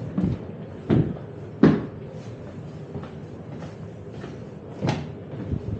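Footsteps walking through a parked tram's passenger compartment, about three steps every two seconds, with a few landing heavily. Underneath is the steady hum of the powered-up tram's onboard equipment.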